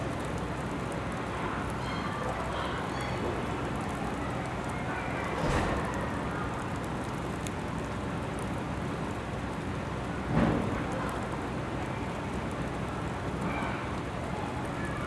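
Graupel (small ice pellets) falling on surfaces: a steady, dense hiss of many small hits. Two brief louder swells come about five and ten seconds in.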